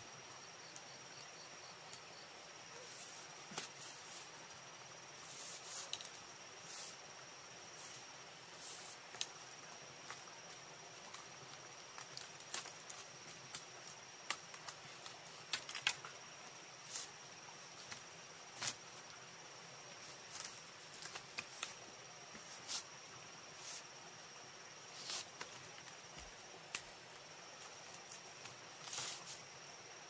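A steady high-pitched insect trill, like a cricket's, with many short clicks and snaps scattered irregularly over it.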